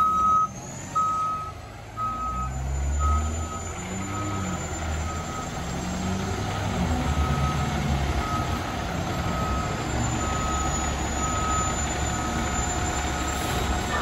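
Fire engine backing up: its reverse alarm beeps steadily, roughly three beeps every two seconds, over the low rumble of its diesel engine.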